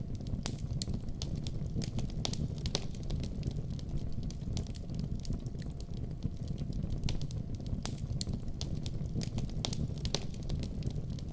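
Wood fire in a fireplace crackling: a steady low rumble of burning with frequent irregular sharp pops and snaps.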